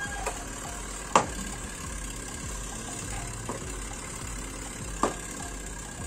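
Four sharp metallic clicks, spaced unevenly, as long-nose pliers work the nut of a toggle switch on a washing machine control panel, over a steady low background rumble.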